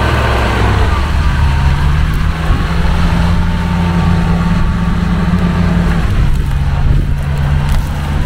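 Off-road SUV engine running hard under load, its note rising about a second in and dropping back about six seconds in.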